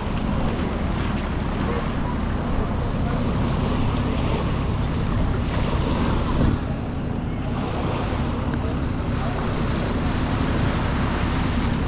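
Wind buffeting the microphone with a steady low rumble, over small waves washing onto a sandy beach.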